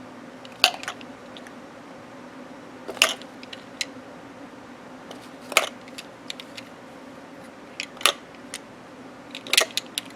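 Sharp clicks and clacks of small planner discs and their tube being handled: about five distinct clicks a couple of seconds apart, with lighter ticks in between.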